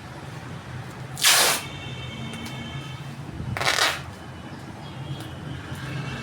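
Two short rasping rips of packing material, about two and a half seconds apart, over a steady low hum.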